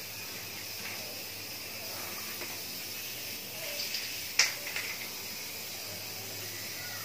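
Steady hiss, with a sharp click about four and a half seconds in and a few lighter clicks and taps around it, as an aerosol spray can of clear coat is handled.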